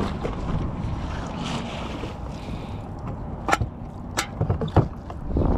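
Wind buffeting the microphone over water around a kayak, a steady low rumble, with a few sharp knocks in the second half.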